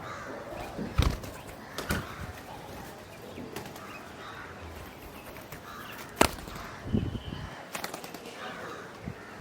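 Crows cawing repeatedly in harsh calls, with several sharp thumps, the loudest about six seconds in.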